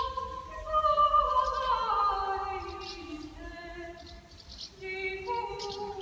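A young woman singing solo with no accompaniment: a long phrase that slides downward in pitch, a short break about four seconds in, then a new phrase.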